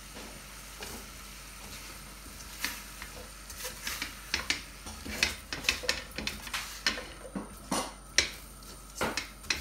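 Slotted spatula stirring raw lamb pieces and sliced onions in a stainless steel pan, with irregular scrapes and clicks against the metal starting about three seconds in, over a faint sizzle from the pan on the heat.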